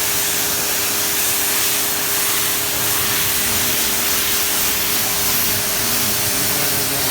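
Mrliance 3500 psi electric pressure washer spraying through its 15-degree nozzle: a steady, loud hiss of the high-pressure water jet with a constant hum from the motor and pump underneath.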